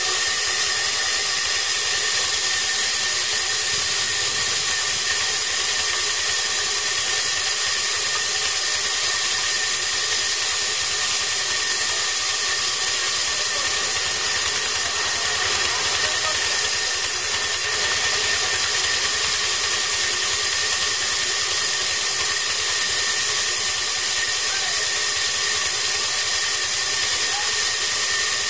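Large vertical band sawmill running steadily: a continuous high hiss with a steady whine under it.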